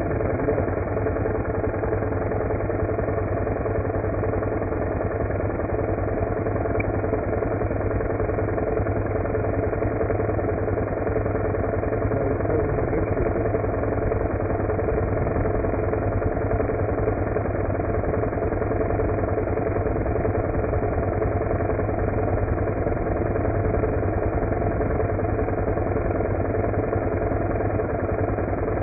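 Snowmelt-fed mountain waterfall tumbling over rocks: a steady, unbroken rush of water that does not change.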